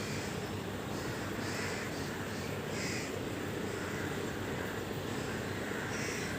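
Birds giving short, harsh calls about once a second, with a pause of a few seconds mid-way, over a steady low rumble.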